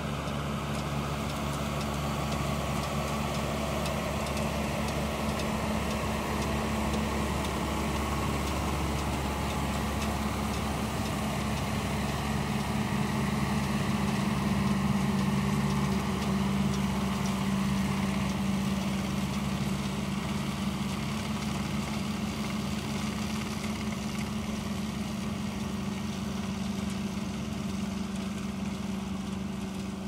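John Deere 6330 tractor's diesel engine running steadily under load while it pulls a Lely Welger RP 245 round baler baling haylage, the baler's pickup and chamber running along with it. It grows louder in the middle as the outfit passes close, then eases off.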